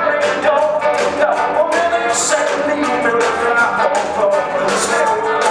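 Live band playing: a man singing over two electric guitars, upright double bass and drums, with a steady drum beat.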